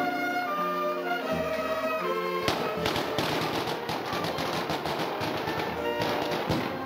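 Brass band playing a slow processional march. About two and a half seconds in, a rapid crackle of firecrackers starts and drowns the band for about four seconds.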